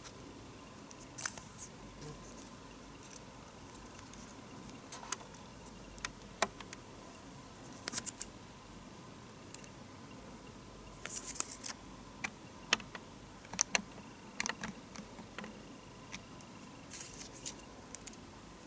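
Hands handling product boxes and packaging: scattered small clicks, taps and brief rustles, with a few quick runs of clicks a little past the middle. A faint steady tone hums underneath.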